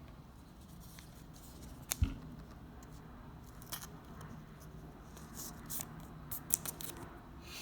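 Trading cards and thin plastic sleeves being handled: soft rustling, a sharp tap about two seconds in, and a run of light clicks and snaps near the end.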